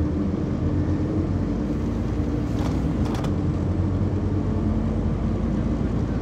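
Scania Omnicity bus driving, heard from inside the passenger cabin: a steady diesel engine hum with road noise, and a couple of brief light rattles about halfway through.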